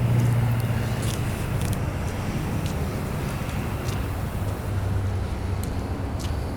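An engine running steadily: a low hum that drops slightly in pitch about a second in, over a rushing noise, with a few faint clicks.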